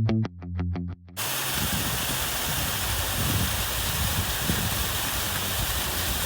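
Guitar background music with rapidly repeated notes cuts off about a second in, giving way to the steady rushing of a waterfall.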